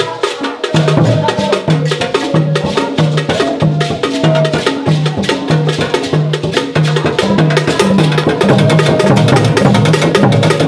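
Ghanaian traditional percussion: a hand-held bell-shaped gong struck with a stick in a fast, sharp pattern over low drum beats repeating about twice a second. It drops out briefly at the start, then carries on steadily.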